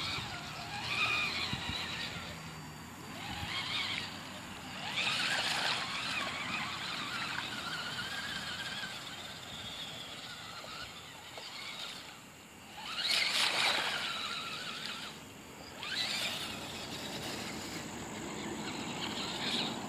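HPI Crawler King RC crawler's electric motor and drivetrain whining in repeated bursts as it is throttled through mud, with the pitch wavering between bursts.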